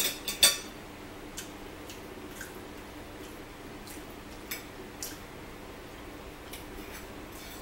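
Forks clicking and scraping against plates during a meal: a quick run of clicks right at the start, the loudest, then scattered light taps.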